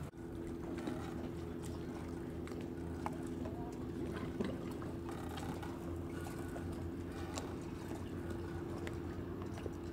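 Steady hum of a boat's engine, an even drone with a few low tones held throughout, with scattered faint clicks over it.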